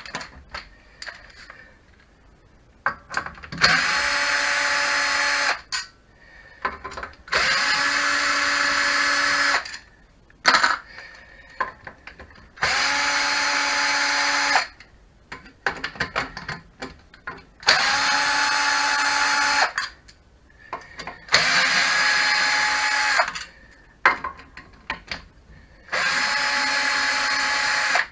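Makita cordless drill-driver running in six short bursts of about two seconds each, its motor pitch rising quickly to a steady whine at each start, as it backs screws out of a trainer's housing. Small clicks and taps of handling come between the bursts.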